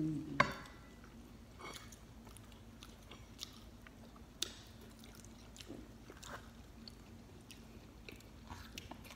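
People biting and chewing pizza slices with crust, with small scattered crunches and mouth sounds. There is one sharper click about half a second in.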